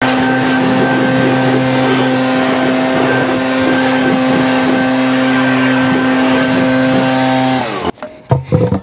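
Backpack leaf blower engine running steadily at high speed, blowing air over a mower. It dips in pitch and cuts off near the end, followed by a few short knocks.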